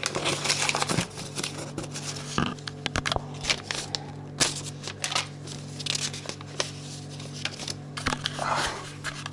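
Paper rustling and crinkling as an envelope is handled and opened and a folded letter is pulled out and unfolded, in many short irregular crackles. A steady low hum runs underneath.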